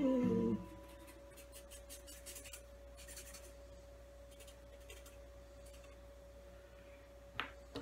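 Felt-tip marker rubbing on paper in faint, irregular strokes as a drawing is coloured in, over a thin steady hum. A single sharp click near the end.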